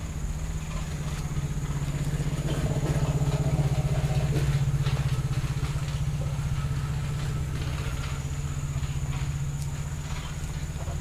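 A small engine running steadily, a low, evenly pulsing hum that swells slightly a few seconds in, with a thin steady high tone above it.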